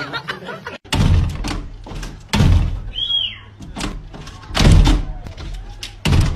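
Four heavy thuds of a glass sliding door being banged, about a second and a half apart, with a brief high squeak about three seconds in.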